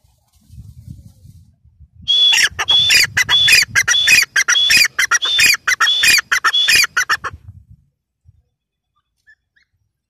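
Grey francolin calling loudly: a fast run of repeated shrill notes, about two a second, lasting some five seconds and starting about two seconds in. Before it, a soft rustle of the bird dust-bathing in dry sand.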